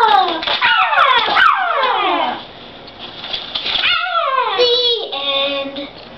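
Children's voices making high swooping sounds that fall in pitch, several in quick succession, then another after a short lull, ending in a couple of held sung notes.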